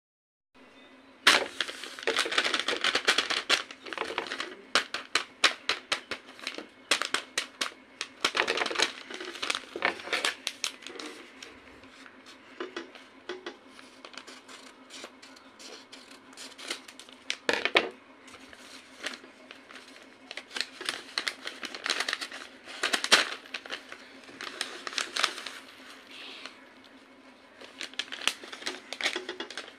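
Paper crinkling and rustling as a paper envelope is handled and cut open with scissors, with runs of quick clicks and snips and a few sharper knocks.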